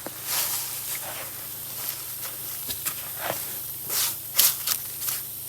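Irregular scraping and rustling, a run of short uneven scrapes with the loudest about four seconds in, over a faint steady low hum.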